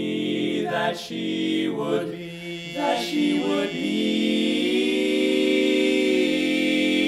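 Male barbershop quartet singing a cappella in close four-part harmony, the words 'she promised me that she would be', ending on a long held chord that swells over the last few seconds.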